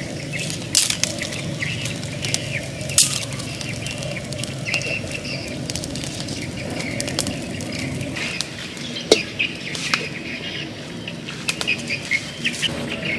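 Small fire of dry twigs and straw crackling, with sharp pops now and then over a steady noise.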